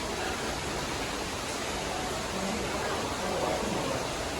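Steady, even rushing noise with faint voices in the background.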